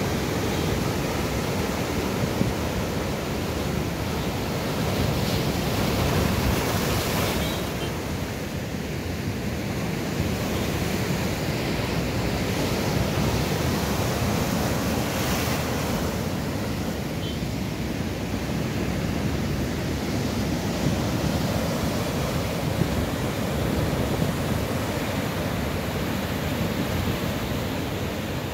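Heavy surf from a storm-rough sea breaking on the shore and against rock boulders: a continuous wash of breaking waves that swells now and then as a big wave comes in.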